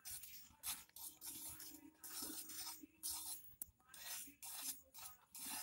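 Metal wire whisk beating yogurt and condensed milk in a bowl, its wires scraping and clinking against the bowl in quick strokes, about two a second. Faint.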